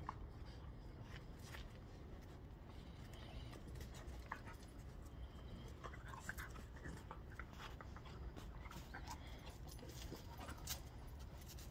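Two dogs play-wrestling: faint panting with scattered light clicks and scuffs.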